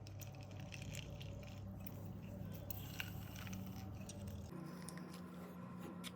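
Faint scattered clicks and light handling noises over a low steady hum, which changes to a higher-pitched hum about four and a half seconds in.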